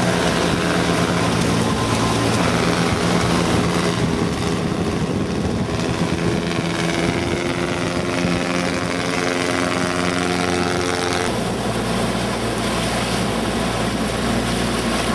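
Engine of a motorized outrigger banca boat running steadily under way on the lake. Its sound changes abruptly about eleven seconds in.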